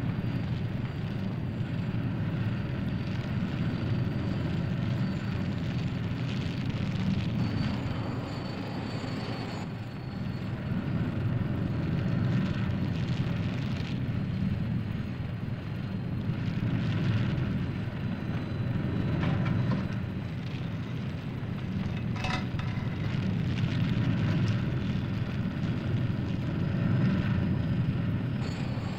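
Low, steady rumbling drone that swells and eases every few seconds, with a single sharp click about 22 seconds in.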